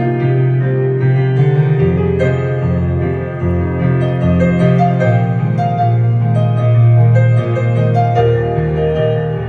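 Yamaha Clavinova digital piano playing a pop-song arrangement: a melody over chords with a low bass line, each bass note held for a second or so.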